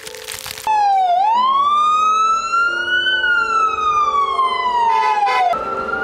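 Ambulance siren wailing: the pitch dips briefly, climbs slowly to a peak, then falls slowly. A brief rapid warble comes near the end, and then a new wail begins to rise.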